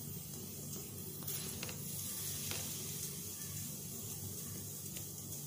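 A steady low hum and hiss, with a few faint soft ticks as a table knife cuts through set kalakand in a steel tin.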